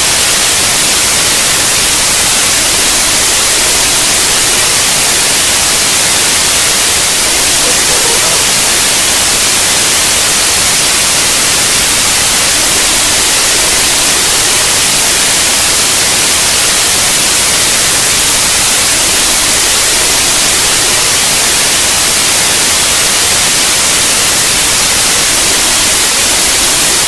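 Steady, loud static hiss, like an untuned analog television, unchanging throughout.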